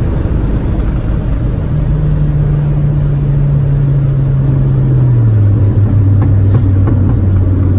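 Inside the cabin of a tuned 250 hp Mini Cooper S R56 running near 250 km/h: the turbocharged four-cylinder engine's steady drone over heavy wind and road noise. The engine note drops in pitch about five seconds in.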